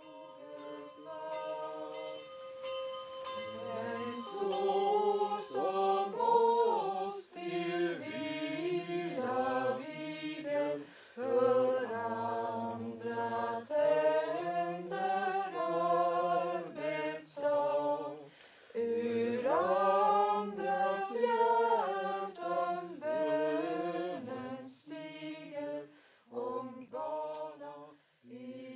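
Unaccompanied singing: a slow melody sung in phrases with short pauses between them, a single note held in the first few seconds.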